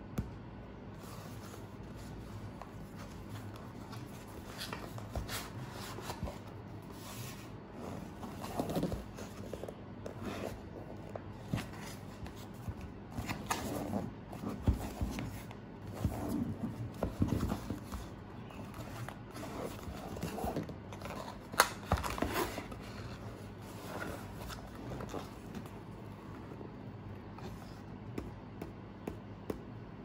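Small cardboard product box being handled by hands, with irregular rustles, scrapes and taps of the card. The noises are busiest through the middle and include one sharp tap about two-thirds of the way through.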